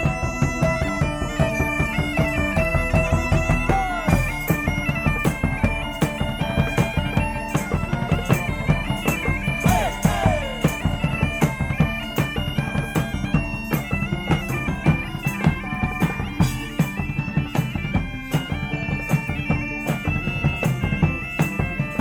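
Bagpipe music: a stepping melody over a steady drone, with a regular drum beat under it.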